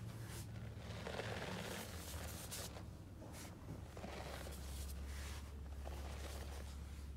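Hands pressing into and scooping fine dry powder in a plastic tub, a soft uneven crunching and rustling as the packed powder gives way and crumbles. A low steady hum runs underneath.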